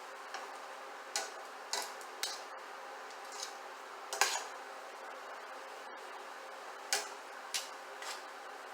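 Cooking utensils knocking and clinking against a pan as noodles are tossed and mixed, about six separate strokes spread out over a faint steady background hum.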